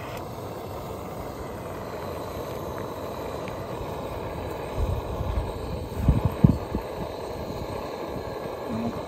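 Gas camping stove burner running with a steady rushing sound under a pot of simmering water, with a few low thumps about five and six seconds in.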